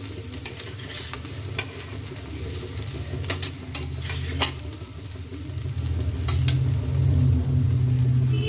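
Metal utensil scraping and clicking against a kadai as fried noodles are stirred and scooped out, a few sharp scrapes scattered through, over a steady low hum that grows louder in the second half.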